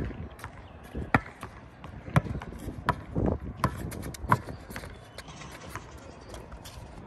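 Basketball bouncing on a concrete court: sharp bounces about every three-quarters of a second, stopping about two-thirds of the way through.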